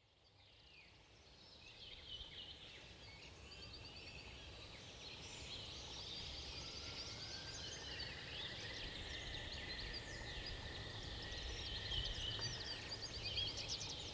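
Several songbirds singing at once in a forest, many short chirps and trills over a low rumble, fading in over the first couple of seconds.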